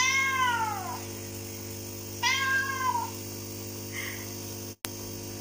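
A recorded domestic cat meowing twice through a phone's speaker. The first meow is about a second long and rises then falls in pitch; a shorter one follows about two seconds in. A steady low electrical hum runs underneath.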